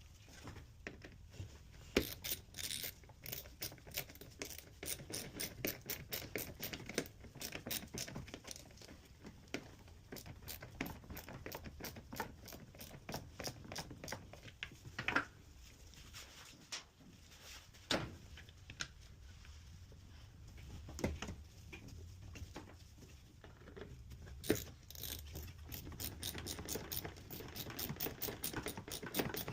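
Hand repair work on a washing machine: a busy run of small clicks, ticks and rattles from tools and parts being handled, with a few sharper knocks and a faster run of clicking near the end.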